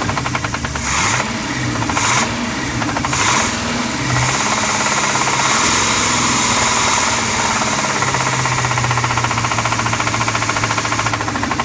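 1990 Crusader 454 big-block V8 marine engine running with a rhythmic knock, revved briefly three times in the first few seconds and then held at a steady speed. The knock is the owner's rod knock: a worn connecting-rod bearing.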